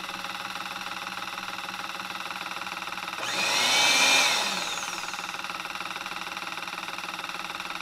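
Milky Plant plant-milk maker running with a steady motor hum. About three seconds in its motor surges into a louder whir for nearly two seconds, its whine rising and then falling away.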